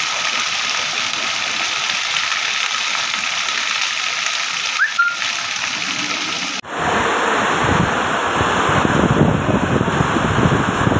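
Heavy rain pouring steadily onto paving, with water running off a roof, and a short whistle about five seconds in. About two-thirds of the way through it cuts abruptly to a louder, wind-driven downpour with gusts rumbling.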